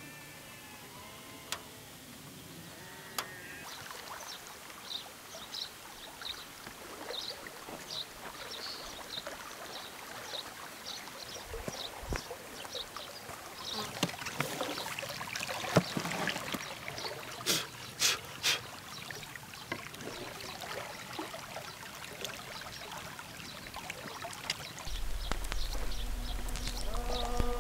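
River water lapping and trickling at the bank, with short high chirps repeating over it and a few sharp clicks in the middle. Near the end a steady buzzing hum comes in.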